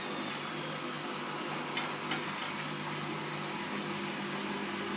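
Candy GODF800 washing machine drum turning in a low spin of about 300 RPM, a steady hum with a motor whine that falls in pitch as the drum slows. Two light clicks come about two seconds in.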